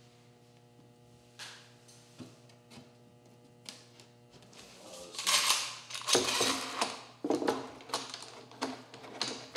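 Hand tool scraping dried glue squeeze-out off a glued-up wooden tabletop, in a series of loud strokes about a second apart that begin about five seconds in, after a few light clicks and knocks.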